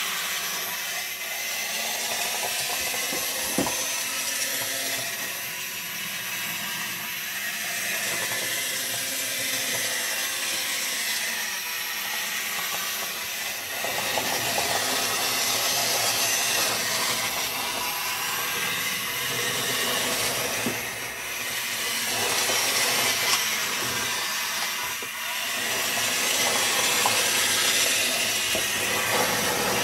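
Small DC gear motors of a hobby robot whirring in a high hiss-like whine as it drives across the floor, swelling and dipping every few seconds as it moves and turns.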